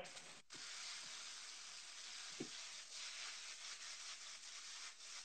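Faint, steady sizzle of pad Thai noodles, sauce and vegetables stir-frying in a hot pan.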